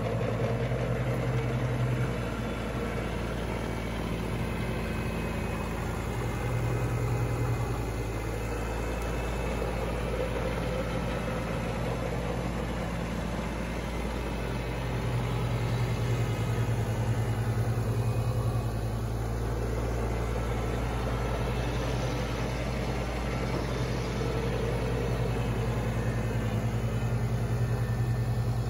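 Kubota BX2822A sub-compact tractor running steadily as it drives past clearing snow with its front-mounted snowblower. The engine hum swells and eases several times as the tractor moves.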